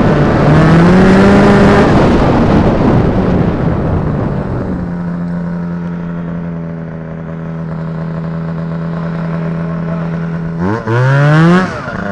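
Two-stroke Rotax 503 twin engine of a Polaris Indy Trail snowmobile running under throttle, its pitch rising, then dropping to a steady idle about four seconds in. Near the end it revs up sharply as the sled pulls away.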